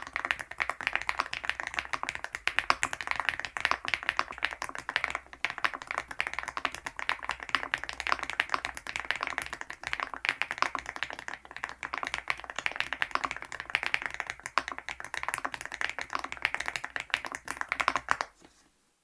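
Fast, continuous typing on an MCHOSE GX87 aluminium tenkeyless mechanical keyboard fitted with 80Retros x HMX Game 1989 switches: a dense run of keystroke clacks that stops suddenly near the end.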